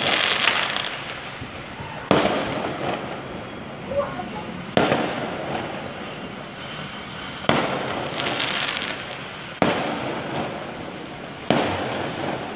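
Fireworks going off: sharp bangs every two to three seconds, each followed by a hissing, crackling tail that fades away.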